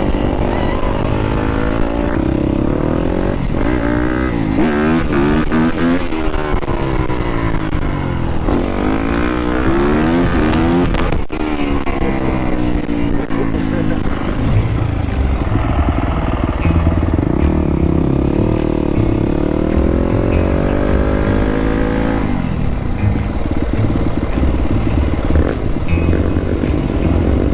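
Yamaha dirt bike engine revving up and down while riding, its pitch climbing and dropping over and over as the throttle is worked, with wind rumble on the microphone. The pitch sweeps stop a few seconds before the end, leaving a steadier engine sound.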